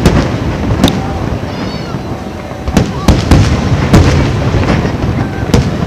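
Fireworks display: shells bursting in rapid succession, several sharp bangs a second over a continuous rumble, loudest about three and four seconds in.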